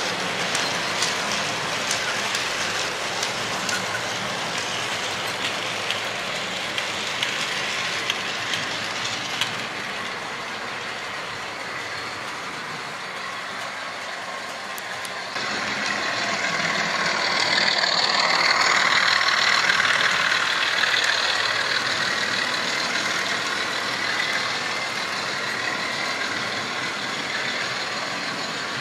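Model electric trains running on a layout: small motors whirring and wheels rolling on the track, with clicks over the rail joints in the first part. About halfway in the sound steps up and grows louder for a few seconds as a train runs close by.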